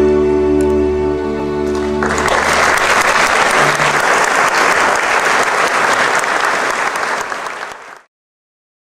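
The song's final chord is held for about two seconds. Then audience applause breaks out, fades, and cuts off abruptly into silence about a second before the end.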